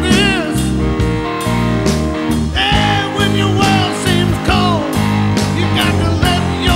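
Music with a steady beat, a stepping bass line and a wavering lead melody.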